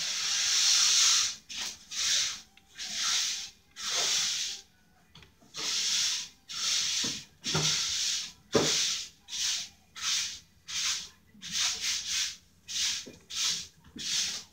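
Rough scraping strokes repeated over and over, about one to two a second, coming quicker and shorter toward the end.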